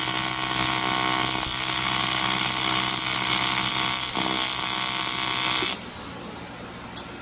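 AC TIG welding arc on aluminium, from an HTP Invertig 221 inverter, buzzing steadily with a hiss. It cuts off abruptly about six seconds in as the arc is broken. A small click follows about a second later.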